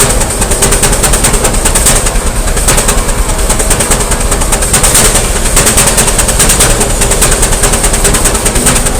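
Steam engine running, its exhaust beating rapidly and evenly several times a second over a steady high hiss.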